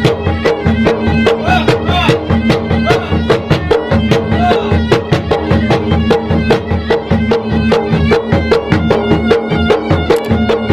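Maros traditional gendang drums played in a fast, steady rhythm of about six strokes a second, with a reedy wind instrument playing a sustained melody over them.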